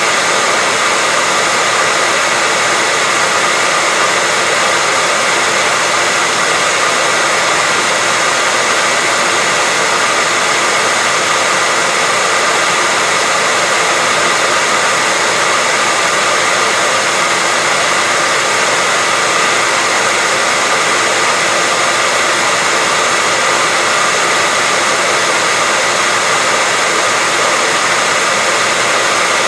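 Electric hairdryer running continuously at one steady setting: a constant airy rush with a faint steady whine in it.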